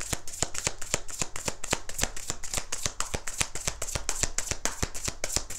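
Tarot deck being shuffled hand to hand in an overhand shuffle: a rapid, even run of card snaps, several a second.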